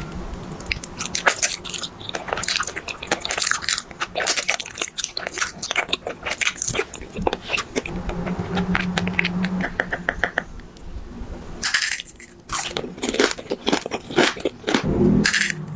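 Close-miked mouth sounds of biting into and chewing a glossy black berry-shaped treat: a dense run of crisp crunching and crackling clicks, with wet chewing as the lips close. The chewing pauses briefly just before the last few seconds, then the crunching picks up again.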